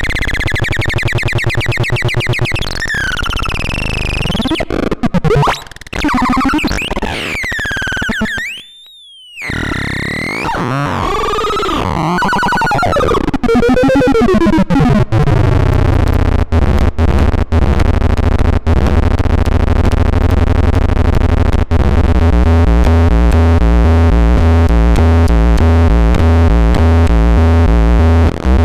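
Electronic noise synthesizer making sliding, wobbling pitched tones that glide up and down, with a brief cut-out about nine seconds in. From about thirteen seconds it settles into a fast, regular stepping pattern over a pulsing low drone.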